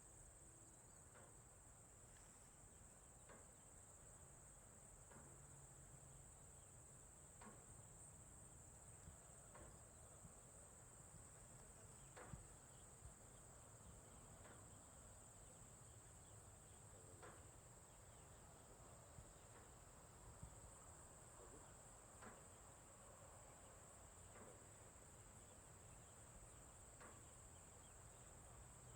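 Faint outdoor farm ambience: a steady, high-pitched insect drone, with short faint chirps or clicks every second or two over a low background rumble.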